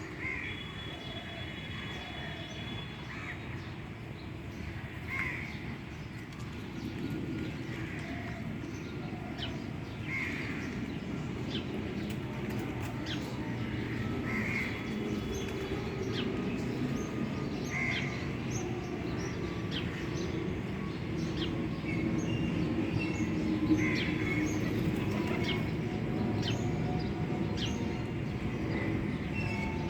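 Crows cawing every few seconds, with small birds chirping over them and a steady low rumble of background noise underneath.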